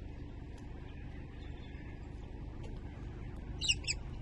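Steady low outdoor rumble, with a bird giving two short, high chirps close together near the end.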